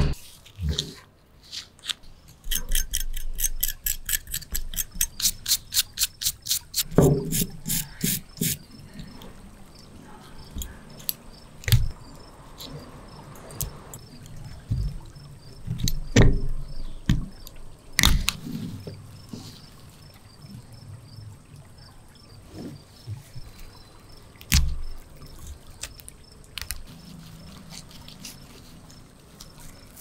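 Hands and pliers working on a corroded toy tractor model: a run of quick, even clicks, about four a second, for some six seconds. Then scattered sharp clicks, snaps and knocks of crusted metal parts being gripped, prised and set down.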